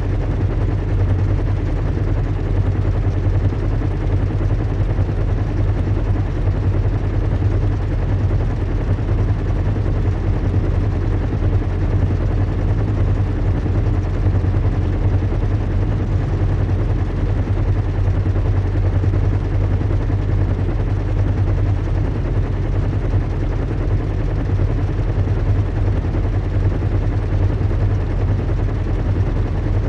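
Recreated sound of a zeppelin's engines in flight: a steady low hum with a fast, even flutter that does not change.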